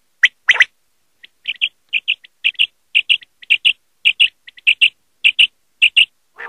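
Common quail calling: two loud calls near the start, then a run of short, sharp notes in pairs, about two pairs a second. A short, rougher sound comes right at the end.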